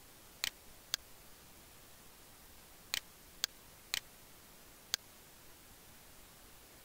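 Six short, sharp clicks at uneven gaps that are all multiples of half a second, over a faint steady hiss.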